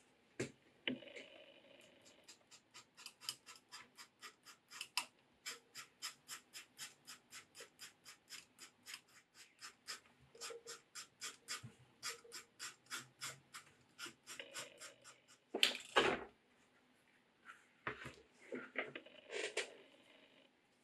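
Craft knife blade scratching across a leather sheath piece in quick, even strokes, about four a second, scoring the surface so the glue grips better. About three-quarters through there is one louder scrape and rustle, then scattered handling noises.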